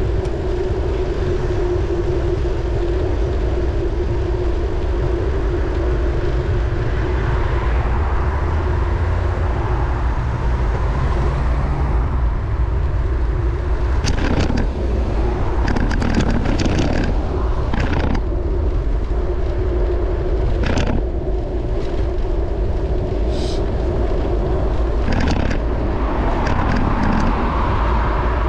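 Wind rumbling on a bicycle-mounted camera's microphone while riding on a road, mixed with road and passing car noise, and a string of sharp knocks and rattles from about halfway through.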